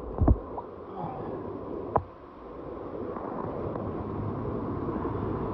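Water sloshing and rushing in a narrow rock gorge around a swimmer, with two sharp knocks, about a third of a second in and again about two seconds in. After the second knock the steady rushing dips, then grows slowly louder.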